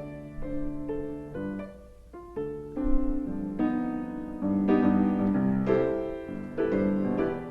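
Solo piano playing a melody over sustained chords, with a brief lull about two seconds in.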